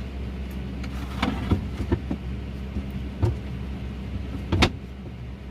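Steady low mechanical hum of something running, with several sharp knocks and clicks, the loudest a little before the end.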